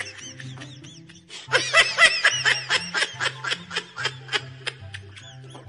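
Rapid bursts of laughter, loudest for a couple of seconds about a second and a half in, over background music with a repeating bass line.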